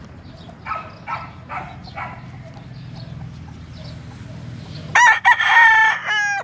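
Gamecock rooster giving a few short clucks, then crowing loudly once about five seconds in, a full cock-a-doodle-doo that wavers at its tail.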